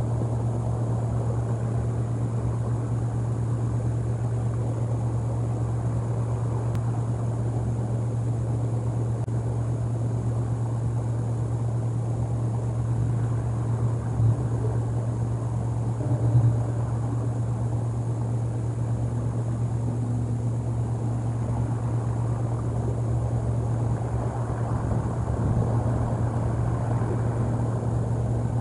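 A steady low rumbling drone, with two brief knocks about halfway through.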